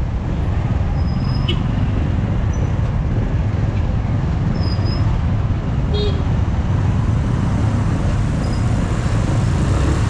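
Road traffic heard from a moving motorcycle: a steady low rumble of engines and road noise from the bike and the motorbikes, auto-rickshaws and bus around it. A short horn toot sounds about six seconds in.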